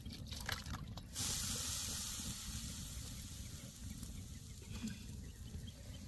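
A pan of fish cooking in water and masala hisses and sizzles loudly with steam, starting suddenly about a second in and slowly dying down.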